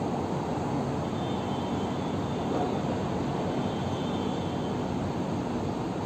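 Steady noise of city traffic and wind, with a faint thin high whine that comes and goes twice.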